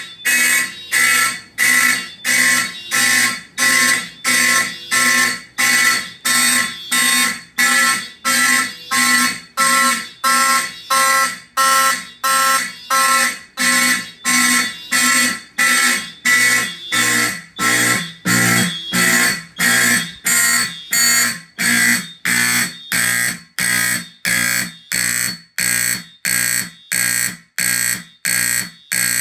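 Simplex fire alarm horns sounding in an even, steady pulse of about three blasts every two seconds.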